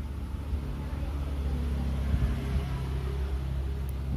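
A steady low mechanical hum, like a motor or engine running, a little louder in the middle.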